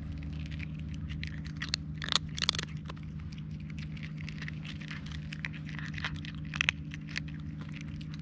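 A kitten crunching dry kibble close up: a run of small crisp crackles and clicks as it chews, louder for a moment about two seconds in and again near the end, over a steady low hum.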